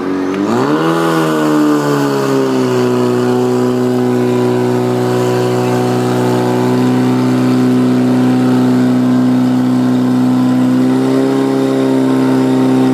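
Portable fire pump's engine revving up hard and then running at steady high revs under load, driving water through the laid-out hoses. The pitch climbs sharply in the first second, holds steady, and steps up slightly about eleven seconds in.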